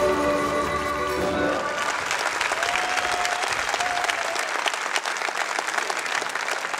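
Live music ends on a held chord about a second and a half in, and a large audience breaks into applause, which fades near the end.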